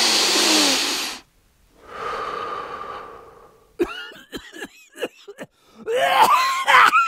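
A person's loud exhale and wheezing breath, then a run of short, choppy coughs and gasps, the loudest near the end.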